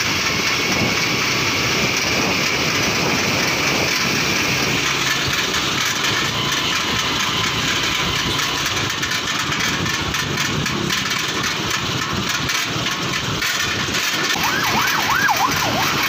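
Steady rush of wind and engine noise from a moving motorcycle, heard from on board. Near the end comes a brief wavering high tone.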